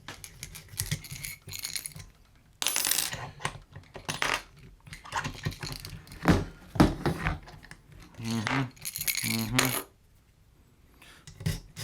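Metal tools and small metal parts clinking and rattling as they are handled, in irregular sharp clicks with a few short scraping strokes.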